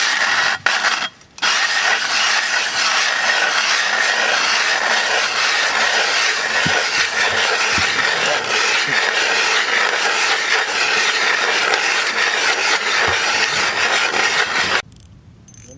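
Ice auger drilling a hole through lake ice, a steady loud grinding and shaving of the blades in the ice. It pauses briefly about a second in and stops abruptly near the end.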